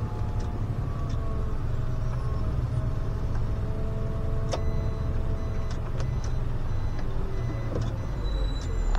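SOR CN10.5 bus running along with a steady low engine rumble and a faint whine that drifts slightly in pitch. A few light clicks and rattles are scattered through it.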